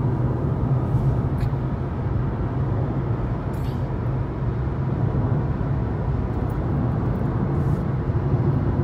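Steady road and engine noise of a car driving at highway speed, heard from inside the cabin as a constant low rumble.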